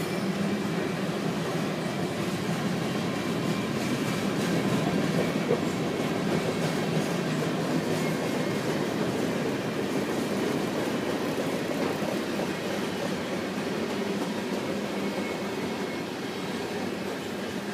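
Freight cars of a grain train rolling past, a steady rumble of wheels on the rails that eases off slightly near the end.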